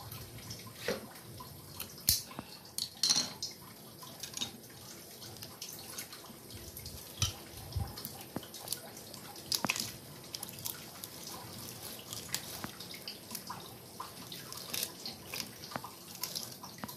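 Knife cutting and trimming a fresh threadfin bream on a wooden chopping board: irregular wet clicks, taps and scrapes, with a few louder knocks about two to three seconds in.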